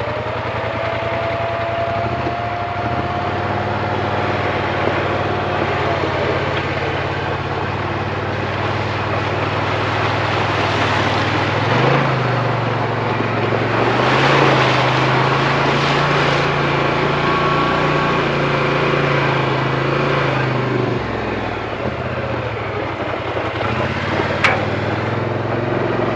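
2022 Polaris Sportsman XP 1000 S ATV's twin-cylinder engine running under throttle as it drives through a shallow stream, its pitch shifting a few times with the throttle. For the first six seconds a thin whine sits over the engine. In the middle stretch the tyres splash through the water.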